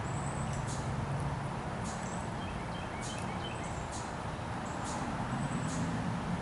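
Outdoor ambience: a steady low hum under a constant rush of noise, with small birds chirping now and then.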